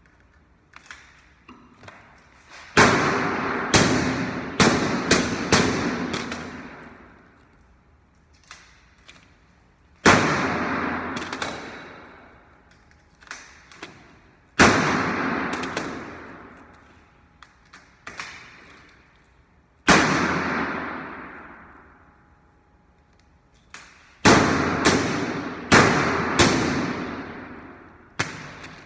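Washing machine making repeated loud bangs, each followed by a long rattling decay of a few seconds; the bangs come in irregular clusters, several in quick succession about three seconds in and again near the end.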